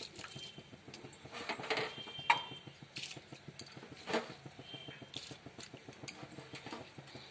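Utensils clinking and knocking against a cooking pot as washed rice is tipped into heated water: scattered knocks, with a loud ringing clink a little over two seconds in and another knock about four seconds in.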